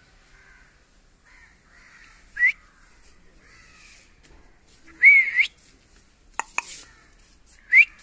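Rose-ringed parakeet giving three short, high calls that sweep upward in pitch, the loudest about five seconds in. Two sharp clicks follow shortly after it.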